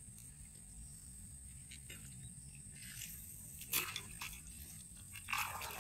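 A hooked fish splashing in a small weedy pond as it is hauled in on a bamboo pole's line. There are a few sharp splashes and rustles, one about three and a half seconds in and a louder one near the end, over a steady high-pitched insect drone.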